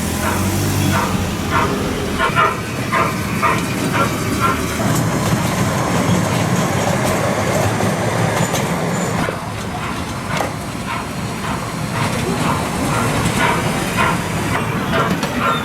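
Miniature ride train running along its track, with a rhythmic beat about twice a second at the start and again near the end, and a denser, steady running noise in between.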